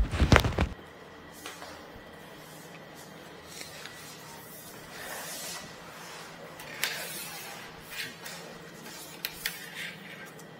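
Painter's tools being handled: a short loud clatter at the start, then faint scraping and a soft hiss, with a few sharp light clicks as a metal paint shield and brush are set against the floor at the baseboard.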